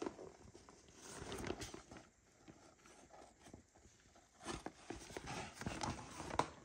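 Louis Vuitton Neverfull MM tote being handled: rustling of the coated canvas and light knocks from the leather handles and fittings. The handling goes quieter about two seconds in and picks up again with a run of knocks after about four and a half seconds.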